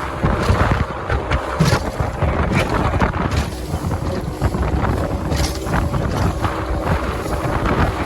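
Motorboat running under way, with strong wind buffeting the microphone in irregular gusts.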